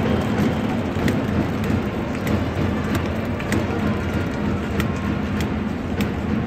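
Baseball stadium crowd: a steady din of many voices, with scattered sharp claps throughout.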